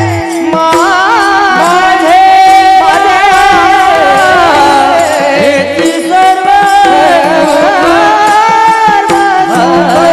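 Marathi devotional abhang music. A melody with sliding, ornamented pitch runs over a steady held drone, with tabla strokes underneath.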